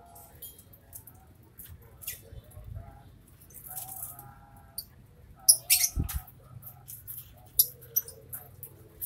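Lovebirds chattering in short, high-pitched squeaky chirps, with a louder flurry of calls about five and a half seconds in and a dull thump just after it.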